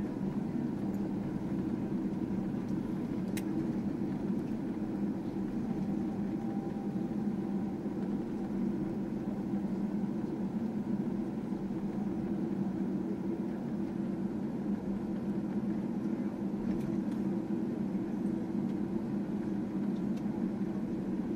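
Steady cabin rumble of a Boeing 777-300ER rolling along the runway after landing: its GE90 engines running at low power and the wheels on the tarmac, with a single light click a few seconds in.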